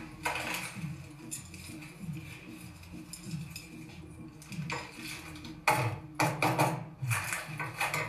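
Crime-drama soundtrack playing on a television: a plastic bag and small objects rustling and clinking as they are handled on a table, over a low repeating pulse. The sharpest clinks come in a cluster about six to seven and a half seconds in.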